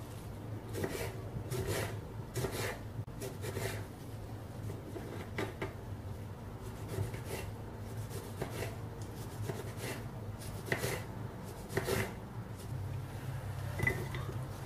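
Kitchen knife cutting and dicing tomatoes on a wooden cutting board: irregular knocks of the blade against the board, one or two a second, over a low steady hum. Near the end the diced tomato is slid off the board into a bowl.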